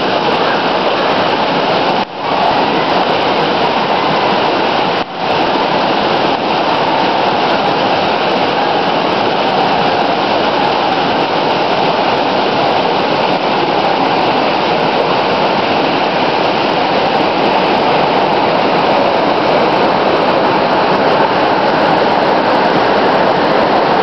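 Sathodi waterfall, several strands of water falling onto rock and into a pool: a loud, steady rush, dropping out for a split second about two and five seconds in.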